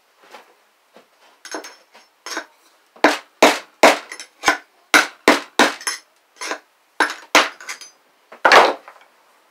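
Hammer blows on a screwdriver set into a go-kart wheel hub, driving out the old wheel bearing. About twenty sharp metallic strikes come in quick, uneven runs, each with a short ring, and the single hardest blow falls near the end.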